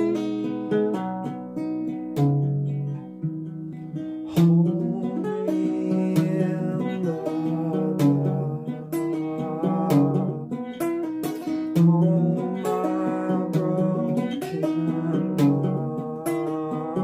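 Acoustic guitar strummed, its chords changing every second or two.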